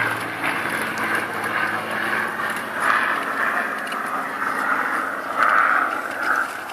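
Spitfire's V12 piston engine droning as the aircraft flies off, its low hum dropping away at the start and the sound slowly fading. A rushing noise swells louder several times, most of all a little before the end.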